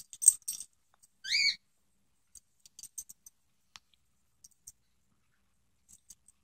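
Beagle puppy giving one short, high squeaky whine that rises in pitch about a second and a half in, with faint scattered ticks around it.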